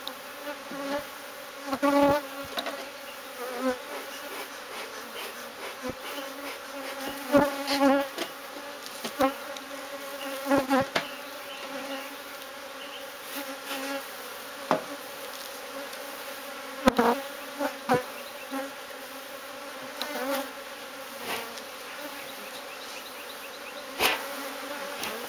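Honeybee colony buzzing steadily in a hive that has been cut open, a continuous droning hum. Scattered sharp clicks and knocks sound over it every few seconds.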